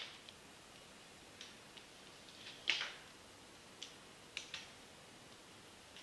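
Metal crutches tapping and clicking on a tiled floor during crutch walking: a scattering of short, sharp clicks, the loudest a little under three seconds in, with a quick pair about four and a half seconds in.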